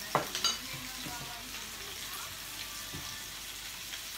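Food sizzling in a frying pan on a portable tabletop gas stove: a steady frying hiss, with a couple of sharp clicks in the first half second.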